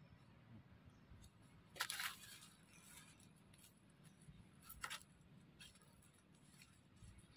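Near silence, with two brief, faint scratchy clicks, one about two seconds in and one about five seconds in.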